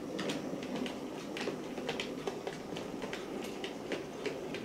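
Hattons OO gauge Andrew Barclay 0-4-0 saddle tank model locomotive running with a short train of mineral wagons. A steady motor and running hum, with irregular clicks and ticks from the wheels on the track.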